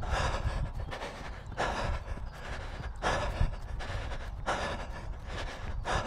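A runner breathing hard mid-run, a heavy breath about every one and a half seconds, over a low rumble.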